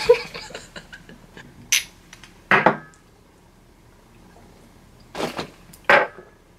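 Light clinks and taps of shot glasses and small items set on a tabletop. Later come two short, sharp breaths as a shot of liquor is downed.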